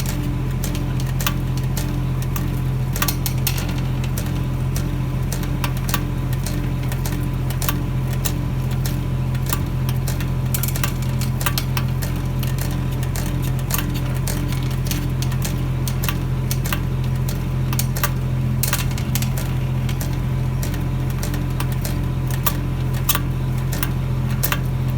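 A steel screw pile, 108 mm by 3 m, being driven into the ground by an engine-powered machine through asphalt, concrete rubble and crushed stone. A steady engine drone runs throughout, with frequent irregular creaks, clicks and cracks as the pile grinds through the debris. The pile creaks but keeps going in.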